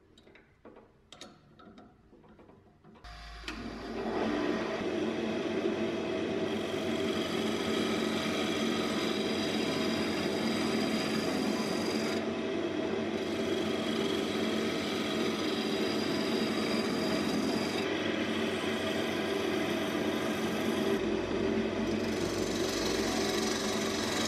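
A few faint clicks of a chuck key tightening a wood blank in a lathe chuck, then about three seconds in the wood lathe starts up and a gouge cuts the spinning blank: a steady hiss of cutting over the motor's hum, with brief breaks as the tool comes off the wood.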